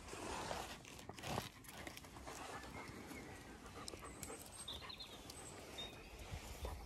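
German Shepherd dog panting close by.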